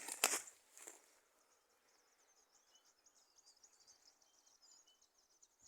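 Faint outdoor ambience of rapid, high-pitched chirping, with a few sharp knocks of handling in the first second.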